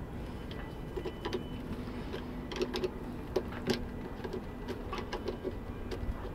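Irregular light metallic clicks and rattles of a stainless steel autopilot drive chain and its connecting link being worked onto the sprocket by hand inside a sailboat's steering pedestal, over a low steady rumble.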